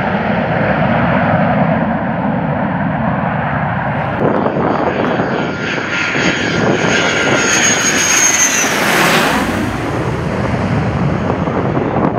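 Fighter jet engines running loud. About four seconds in the sound changes to F-16 jet engines rolling on the runway, with a high steady turbine whine over the roar, which sweeps past with a falling pitch about two-thirds of the way through.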